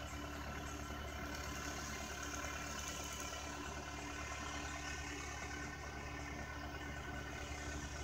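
Farm tractor's diesel engine running steadily as it pulls a wheel hay rake, a continuous low hum with no change in pitch.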